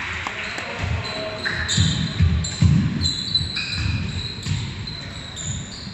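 Basketball bouncing on a wooden gym floor during play, a run of irregular thumps, with short high sneaker squeaks as players run and turn on the court.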